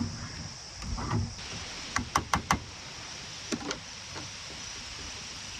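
Cooking gear being handled: a dull knock about a second in, then four sharp clicks in quick succession, and a few lighter clicks, over a steady faint hiss.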